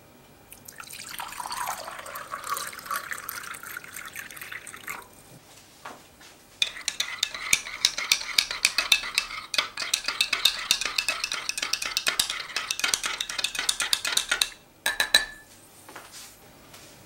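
Water poured from a jug into a glass mug, the pitch of the pour rising as the mug fills. Then a metal teaspoon stirs briskly, clinking rapidly against the glass for about eight seconds, with a few last clinks just after.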